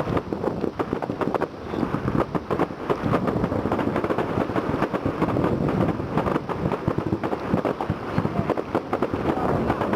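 Fireworks going off in a dense, continuous barrage of overlapping bangs and crackles.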